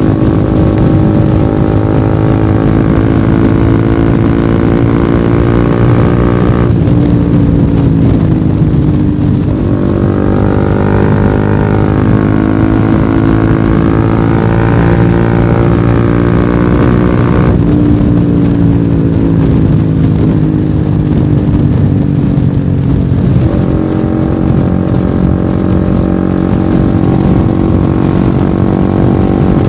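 Honda CBR150R's single-cylinder engine with a lightly modified exhaust, running under way. Its note changes abruptly a few times and sinks gradually once, about seven seconds in, as the throttle and gears change.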